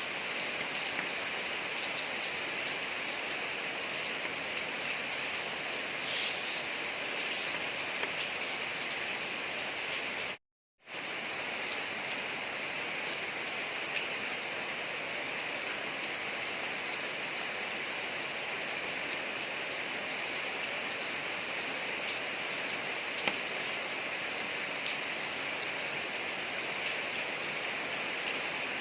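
Steady rain falling on a street: a dense, even hiss with scattered faint drop ticks. About ten seconds in, the sound cuts out completely for half a second, then resumes unchanged.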